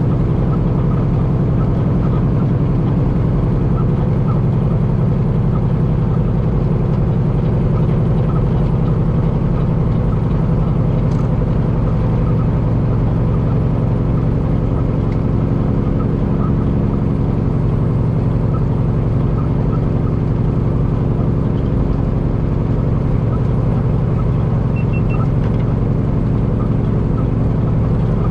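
Semi truck's straight-piped Cummins diesel engine running steadily, its low drone holding one even pitch without revving or shifting.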